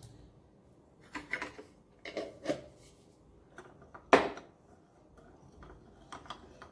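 Ceramic spoon knocking and scraping against a ceramic bowl as thin flour batter is stirred: a few scattered clinks, the loudest about four seconds in.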